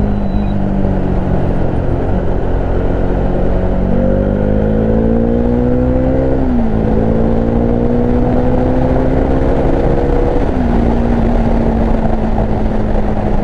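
Bajaj Dominar 400's single-cylinder engine under way. It runs steadily, then revs up and drops sharply with an upshift about halfway through, climbs again and drops with a second upshift about three quarters through, then holds steady.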